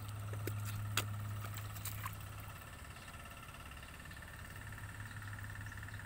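A steady low motor hum, strongest over the first couple of seconds, with a faint steady high tone above it and a few sharp clicks about a second in.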